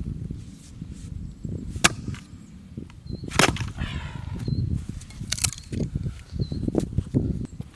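Wood being chopped, perhaps firewood split with an axe or hatchet: several sharp strikes spaced roughly one and a half to two seconds apart, over a low rumble of wind on the microphone.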